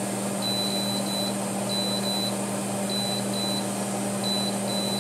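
Power Quick Pot electric pressure cooker's control panel beeping as its dial is turned to set the cooking time: about ten short, high beeps in small bunches. A steady low hum runs underneath.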